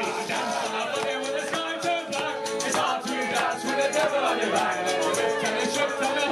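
Loud party music with a steady beat and held notes.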